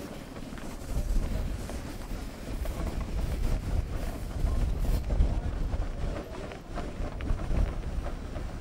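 Miniature steam traction engines driving past on gravel, with an uneven rumble of wind buffeting the microphone from about a second in.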